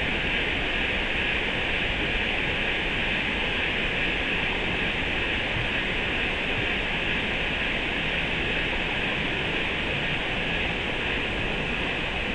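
Steady, unbroken rush of flowing creek water, with an even high hiss over a low rumble and no separate events.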